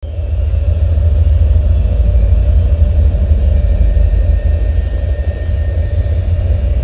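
Loud, steady deep rumbling noise, with a weaker band higher up and a few faint high chirps.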